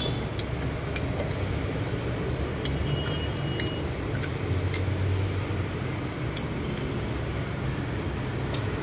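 Light metallic clinks and taps of a combination wrench on the bolts and housing of a Honeywell turbocharger, with a few brief ringing pings about three seconds in. A steady low rumble runs underneath.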